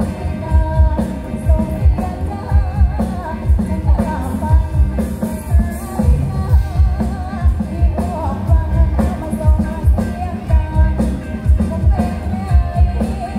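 A pop song with singing and a steady, heavy bass beat, played loud through big mobile sound-system speaker rigs.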